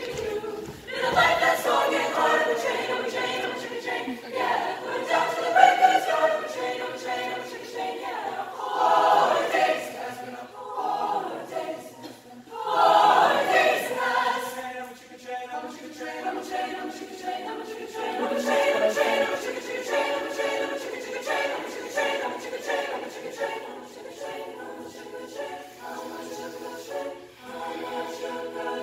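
Mixed-voice choir singing a cappella, in phrases that swell and fall.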